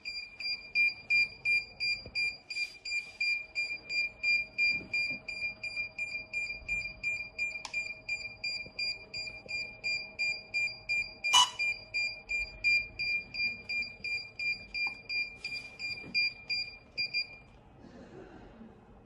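DJI RC remote controller beeping in linking mode while pairing with a DJI Mini 3 Pro: a steady stream of short high beeps, about three a second, that stops near the end. A sharp click about two-thirds of the way through.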